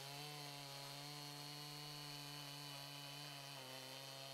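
Makita two-stroke gasoline chainsaw running at high revs under load, its Husqvarna safety chain cutting through a stack of pine 4x4s. The engine note holds steady, then dips briefly about three and a half seconds in.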